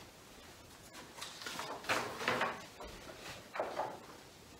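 A paper picture card being handled and put up on a whiteboard: soft rustling and light knocks in short spells from about a second in.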